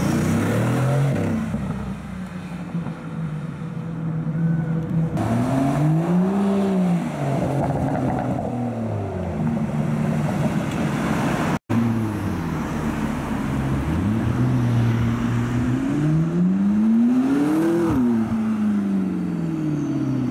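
Sports-car engines accelerating past one after another, the engine note rising and falling as they rev up and change gear. The sound cuts out for an instant about halfway through, at an edit.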